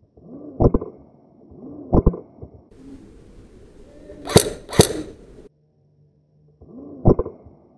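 Airsoft guns firing single shots: five sharp snaps, each preceded by a short whir, with the two loudest close together in the middle.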